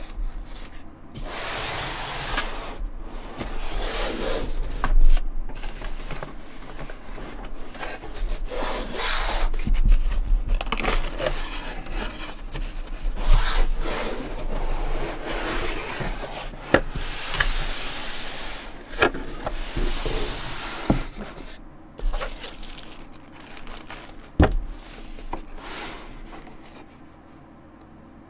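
Cardboard packaging being handled: the box sliding, rubbing and scraping against hands and surfaces, with a few sharp taps and knocks as it is turned over and its lid is opened. It dies down near the end.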